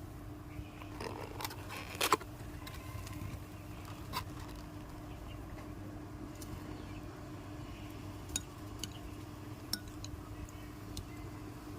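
Occasional small clicks and clinks over a steady low hum, the loudest pair about two seconds in.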